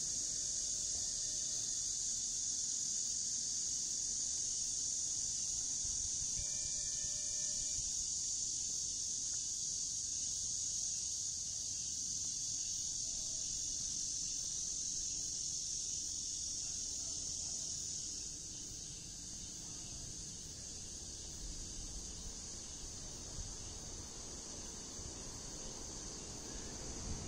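Steady, high-pitched chorus of insects singing in the trees, easing off about two-thirds of the way through and picking up again near the end.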